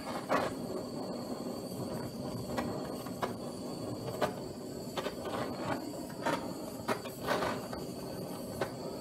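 Handheld butane torch flame running steadily with a hiss, with sharp irregular crackles, roughly one a second, as the carved wood and glued-on paper scorch under the flame.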